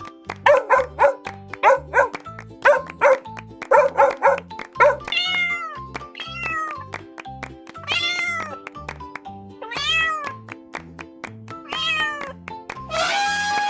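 A dog barking in quick short barks, then from about five seconds in a cat meowing about six times. Both play over background music with a steady beat.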